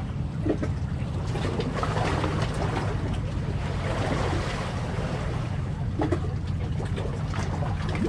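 Steady low drone of a boat engine over wind and water noise, with two brief soft knocks, about half a second and six seconds in.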